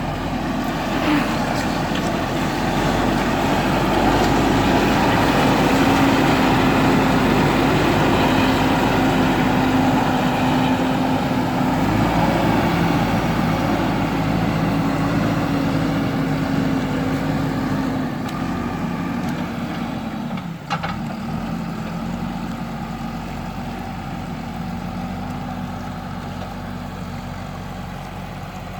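JCB backhoe loader's diesel engine running steadily under work, with a steady hum that swells in the first few seconds and then slowly fades over the last third. There is a short clunk about two-thirds of the way through.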